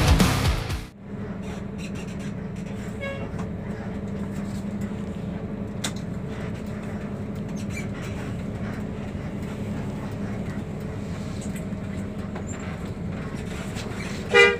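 Bus engine and road noise heard from inside the moving coach, a steady low hum. Near the end a short, loud horn blast.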